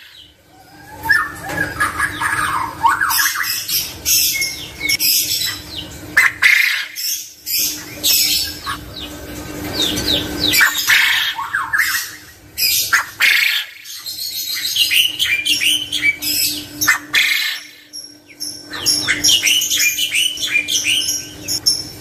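Caged male quail and other cage birds calling: bursts of short, falling chirps and squawks with brief pauses between them, over a low steady hum.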